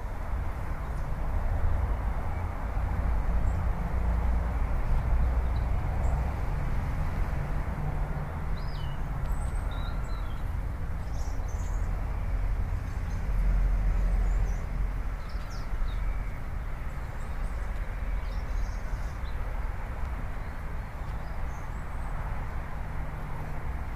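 A steady low rumble with a few faint, high bird chirps scattered through it.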